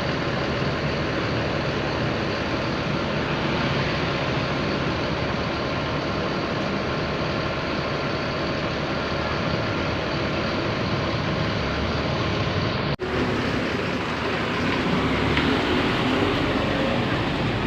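Steady roadside traffic noise from passing vehicles, with no horn melody standing out. It breaks off in a brief dropout at a cut about thirteen seconds in, then carries on much the same.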